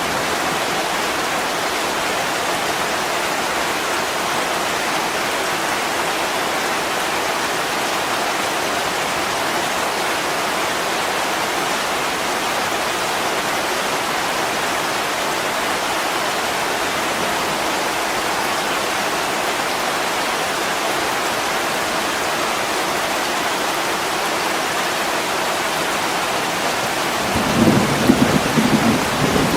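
Heavy rain falling steadily on a window, an even hiss. Near the end a low rumble of thunder rolls in, louder than the rain.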